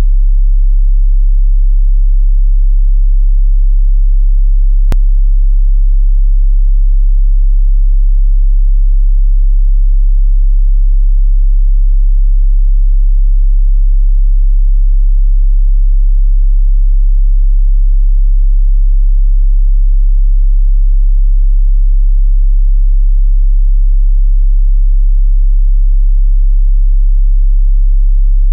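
Steady 34 Hz sine-wave test tone for checking a subwoofer's low-bass reach: a single pure, very deep hum held at constant high volume.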